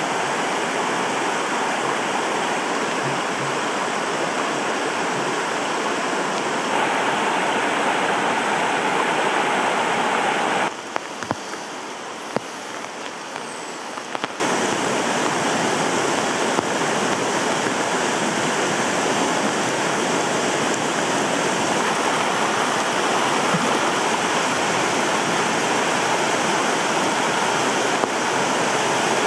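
Floodwater of a stream swollen by torrential rain, rushing and churning as a steady, dense noise. It drops quieter for a few seconds near the middle, then returns to full strength.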